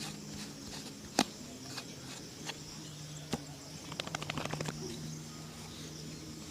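Shoe-shine tools being handled: a sharp click about a second in, a softer click a couple of seconds later, then a quick rattle of about a dozen light ticks. A faint low hum runs underneath.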